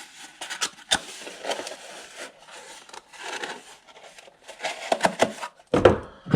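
Cardboard Priority Mail shipping box being folded into shape by hand: card rubbing and scraping as flaps are bent and creased, with sharp knocks about a second in and a cluster of louder thumps and taps near the end.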